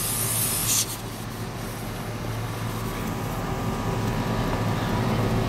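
A short sharp hiss of air at a tyre valve that cuts off under a second in, over the steady low hum of idling Hummer engines, which grows slightly louder toward the end.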